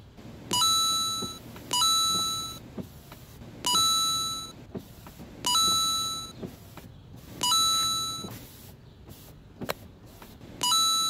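The car's electronic warning chime sounding six times at uneven gaps, each ringing tone lasting about a second and fading away, with faint clicks in between.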